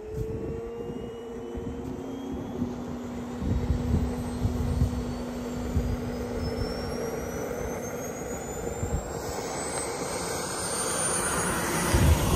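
Turbine engine of a radio-controlled Tomahawk F-86 Sabre scale jet on a low approach to landing: a steady jet whine with a thin high whistle that climbs slowly in pitch. It is loudest near the end as the jet rolls along the runway.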